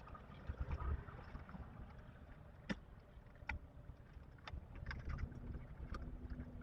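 Faint handling noise as a wired GFCI outlet is pushed into an electrical box: a low rumble with a few sharp, scattered clicks and taps.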